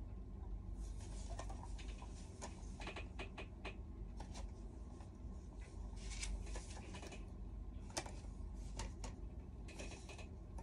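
Paper and clear plastic packaging being handled and opened by hand: irregular crinkling rustles and small clicks, starting about a second in, over a steady low hum.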